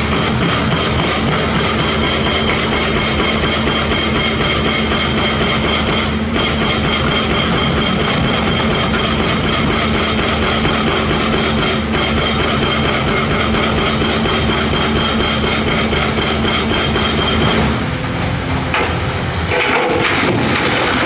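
Loud rock music with electric guitar and drums, steady throughout and changing in texture near the end.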